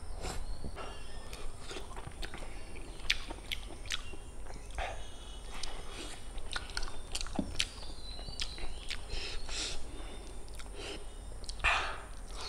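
Mouth sounds of a person biting meat off a chicken leg and chewing, with irregular sharp clicks throughout.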